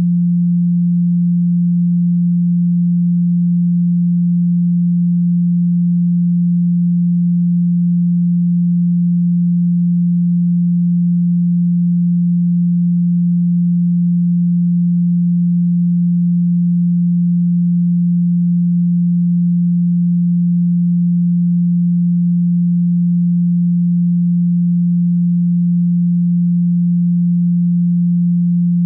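A steady pure tone at 174 Hz, a Solfeggio 'healing frequency' tone, held unchanged at an even level.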